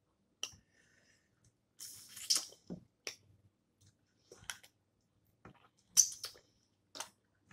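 Snow crab legs being snapped and cracked open by hand, with no crab cracker: a string of irregular sharp cracks and wet squishy clicks mixed with chewing. The loudest crack comes about six seconds in.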